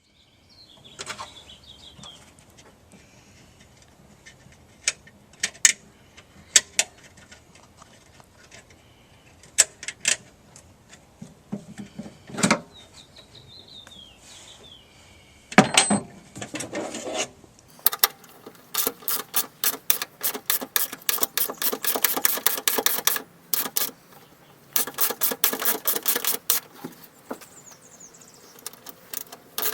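Hand tools and hardware clicking on metal inside a Toyota Sienna's front door while a cage nut is worked onto a bolt: scattered sharp clicks and knocks, then past the halfway point long runs of rapid, even clicking that pause briefly and start again.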